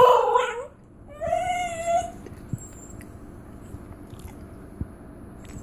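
Dog yodelling, the warbling call that basenjis make instead of barking: one call tails off just after the start, and a second, shorter call rises and falls about a second in. After that there is only low background with a few faint taps.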